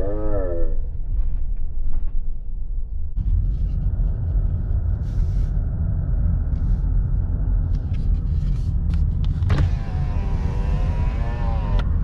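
Small car driving slowly: steady engine and road rumble that gets heavier about three seconds in. A short wavering, voice-like tone sounds near the start, and another near the end.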